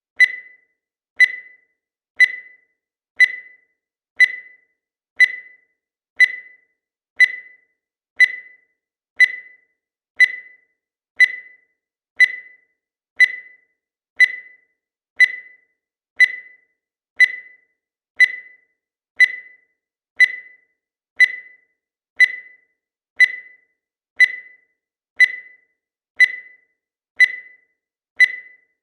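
Digital timer beeping once a second to count off the seconds: short, high electronic beeps, each starting sharply and dying away quickly, with silence between.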